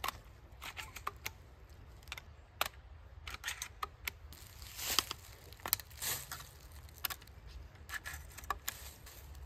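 Scattered light clicks and rustles of a lever-action rifle being handled and turned over in the hands.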